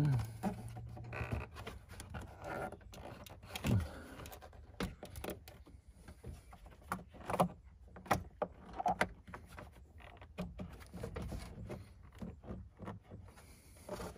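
Plastic engine air intake box and its breather hoses being handled and pressed into place: irregular scraping and rubbing with scattered sharp clicks and knocks, the loudest about 4 and 7 to 8 seconds in.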